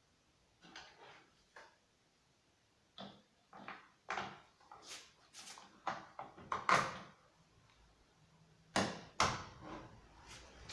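Handling noises: an irregular run of clicks and knocks as things are picked up and set down, with the loudest knocks about two-thirds of the way in and again near the end.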